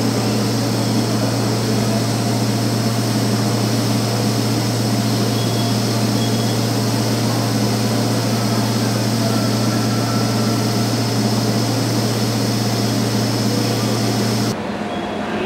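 JR East E657 series electric train standing at the platform, its onboard equipment giving a steady, unchanging hum with a low drone.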